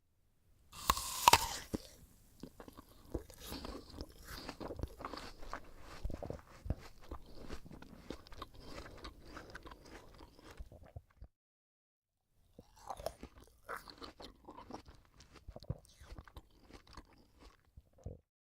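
A crisp apple being bitten into with a loud crunch about a second in, then chewed with many wet crunches. The chewing stops for about a second after ten seconds, then resumes.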